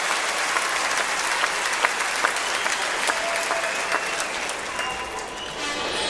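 A large stadium audience applauding steadily.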